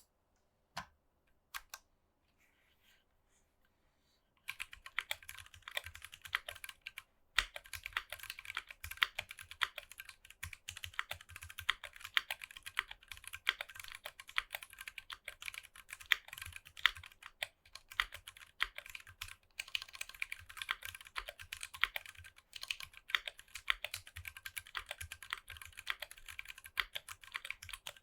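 Typing on a Tofu 60 mechanical keyboard with NovelKeys Box Royal Purple switches and PBT keycaps. A few separate keystrokes come first, then a short pause, then about four seconds in a fast, continuous run of key presses starts.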